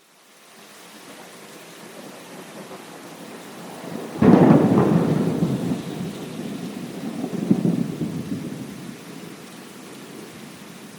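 Steady rain fades in from silence. About four seconds in, a sudden thunderclap breaks into a long rolling rumble that swells again a few seconds later and dies away slowly under the continuing rain.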